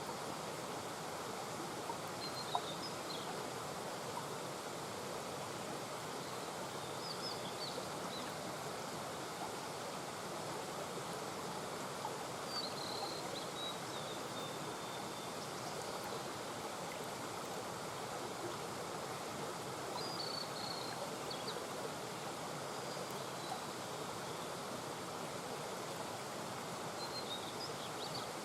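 Small mountain brook murmuring steadily, with a few short high chirps every several seconds.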